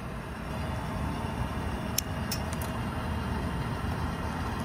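Steady low background rumble, with a few light clicks about two seconds in from handling a wire and a pair of wire strippers.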